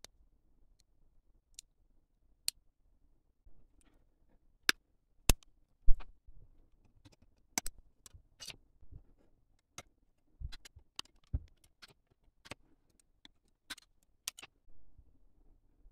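Plastic Gunpla model kit parts clicking and tapping as they are handled and snapped together, in scattered sharp clicks with a few duller knocks. The loudest is a knock about six seconds in.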